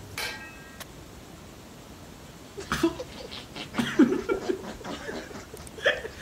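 A man laughing in short, uneven bursts, starting after a quiet couple of seconds.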